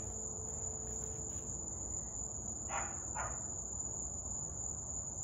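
Steady high-pitched chorus of night insects, with two short rustles about three seconds in.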